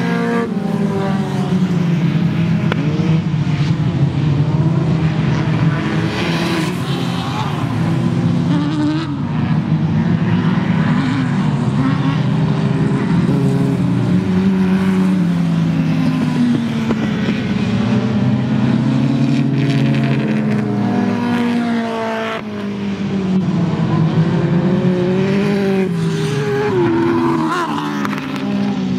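Several autocross race cars running hard together, their engine notes overlapping and rising and falling in pitch as they accelerate and lift off.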